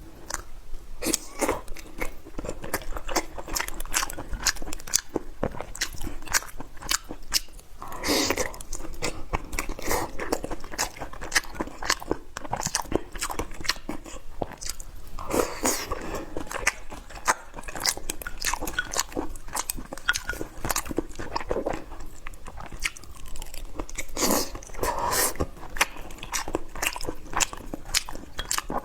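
Close-up mouth sounds of a person biting and chewing crunchy food, with a dense run of crisp crackles. A few louder stretches come about eight, fifteen and twenty-four seconds in.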